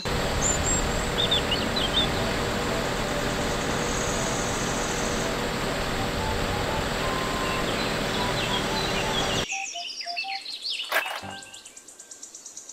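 Truck-mounted aerial work platform running, a steady mechanical drone with birds chirping over it. The drone cuts off suddenly about nine and a half seconds in, leaving fainter bird chirps and a single sharp click.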